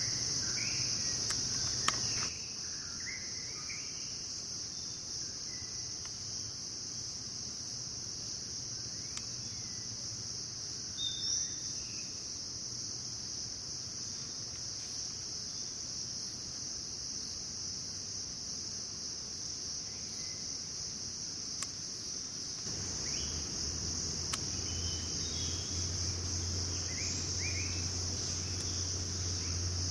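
Steady, high-pitched drone of rainforest insects, with occasional short bird chirps. A low steady hum joins about two-thirds of the way through.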